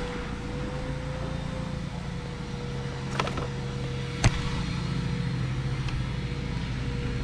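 A steady mechanical hum with a held tone, broken by a few light clicks about three seconds in and one sharp knock about four seconds in.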